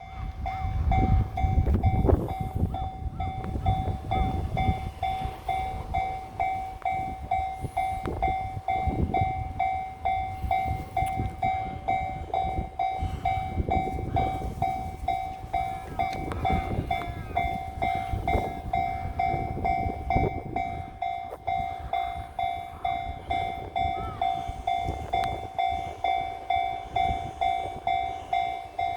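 Japanese level-crossing warning bell ringing in a steady pulse, about one and a half beats a second. Under it a local electric train passes over the crossing, its wheels rumbling and clacking over the rail joints. The train is loudest in the first few seconds and fades after about twenty seconds, leaving the bell ringing on.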